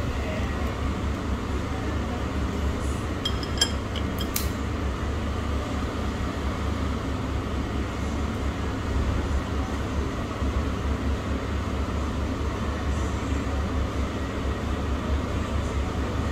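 Steady low background rumble, with a few short clinks about three and a half to four and a half seconds in.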